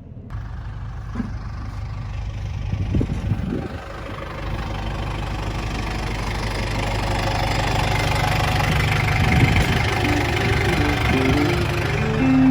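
An engine running steadily, growing gradually louder, with background music coming in about ten seconds in.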